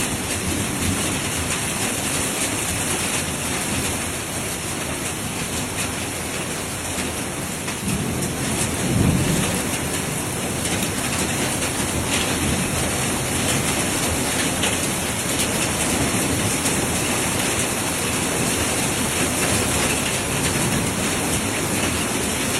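Heavy hail and rain pelting down, a dense, steady clatter of many small hits. About nine seconds in, a low rumble swells briefly.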